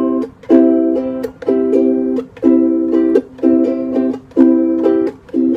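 Ukulele strumming chords in a steady rhythm, about one chord a second with quick upstrokes between, as the song's instrumental intro.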